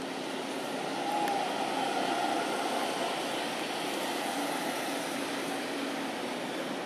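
Steady hum of passing motor traffic, swelling about a second in and easing off after a few seconds.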